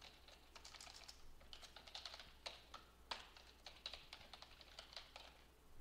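Computer keyboard being typed on: a faint, irregular run of key clicks.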